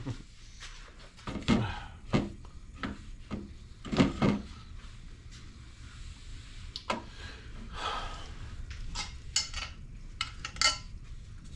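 Irregular series of hard knocks and metallic clinks from tools and parts being handled and set down, loudest about a second and a half in and around four seconds in.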